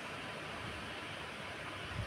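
Steady, even background hiss with a faint low rumble underneath, unchanging throughout.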